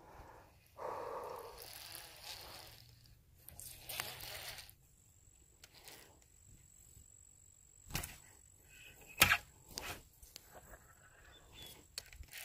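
Handling of a fishing rod and reel: rustling in the first few seconds, then a few sharp clicks, the loudest about nine seconds in. A faint, high, steady whine runs from about five seconds in.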